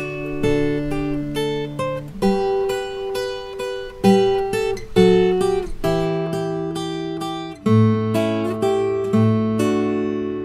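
Background music: an acoustic guitar instrumental of plucked notes and chords.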